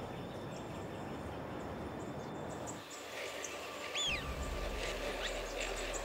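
A steady, even outdoor noise, then about three seconds in a flock of birds starts calling, with scattered chirps and one clear call that rises and falls a second later.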